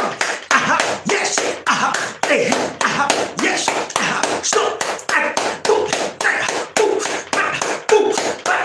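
A man claps his hands rapidly and steadily, about three to four claps a second. A loud, wordless male voice shouts and chants between the claps.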